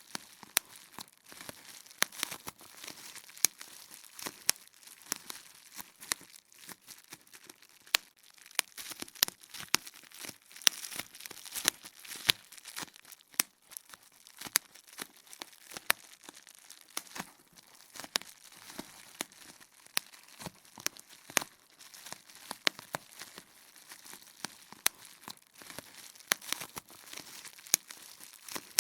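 Bubble wrap being popped: irregular sharp pops, a few a second, with crinkling of the plastic between them.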